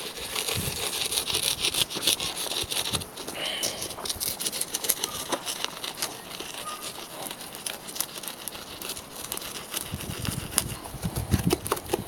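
Burning charcoal crackling and ticking inside a hollowed tree stump being fire-chiselled, a steady run of many small sharp pops, with a few dull thumps near the end.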